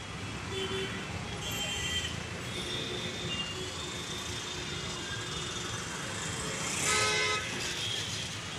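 Road traffic noise with scattered faint horn toots, and one loud short horn blast about seven seconds in.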